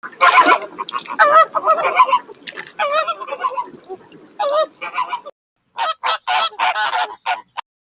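Flamingos calling: dense, overlapping calls for about five seconds, then after a brief pause a quick run of about six separate calls.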